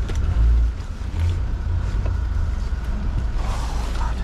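Steady low outdoor rumble with no speech, swelling briefly about half a second in.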